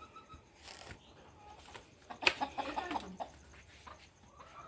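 Chickens clucking, with a louder cluster of clucks a little past two seconds in.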